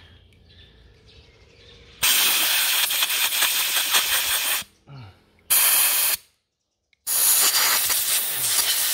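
Aerosol foam cleaner hissing out through its extension straw into the air port of a Bosch idle air control valve, in three bursts: a long one about two seconds in, a short one past the middle, and another starting near the end.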